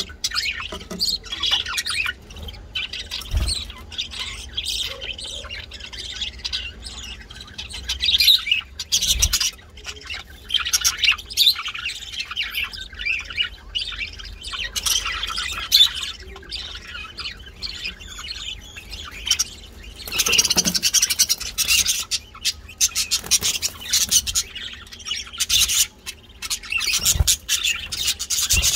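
Birds chirping and squawking almost without pause, with a few dull thumps.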